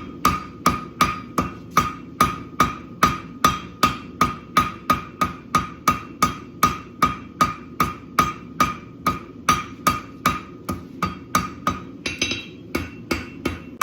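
Hand hammer striking hot steel on an anvil in a steady rhythm of about three blows a second, each blow with a bright anvil ring. The steel is being forged into a stocking hook. Near the end a few blows sound lighter.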